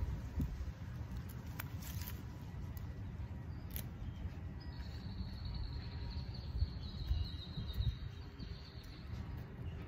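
Metal garden shears snipping through a croton stem: a few sharp clicks in the first four seconds over a low rumble. A thin, high, steady bird call runs from about halfway through to near the end.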